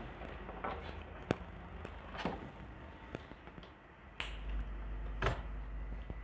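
Sharp clicks of a CRT TV being handled and switched on, and about four seconds in a low hum starts and holds as the set powers up on its newly fitted replacement kit.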